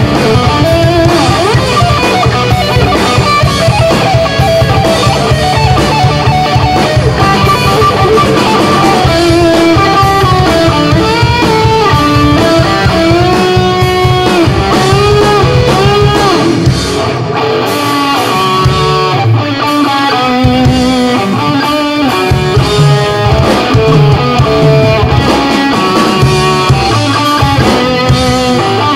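Live rock band playing an instrumental passage: a lead electric guitar plays a melody over a second guitar, bass guitar and drum kit, with no singing.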